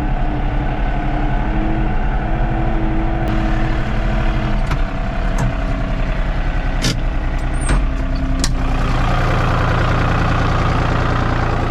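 Farm tractor engine running steadily under way, with a few sharp knocks. About nine seconds in the engine note changes and settles into a steady idle.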